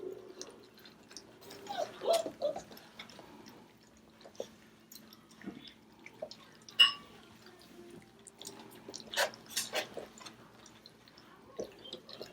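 Four-week-old puppies eating and lapping from their bowls: scattered short wet smacking and licking ticks, with one sharp click about seven seconds in.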